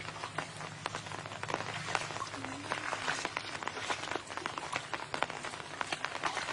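Shallow muddy water splashing and dripping in many small, irregular ticks as hands and feet move through it, over a faint low hum.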